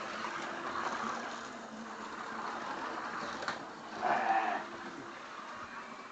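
Scalextric digital slot cars, painted sidecar models, running on a plastic track: a steady whirr from their small electric motors. A sharp click comes about three and a half seconds in, and a brief, louder pitched sound about four seconds in.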